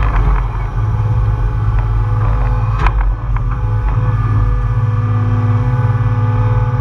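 John Deere 200 excavator's diesel engine running steadily with a deep drone as the bucket digs in pond mud. Steady higher tones sit over the drone, and there is one sharp knock about three seconds in.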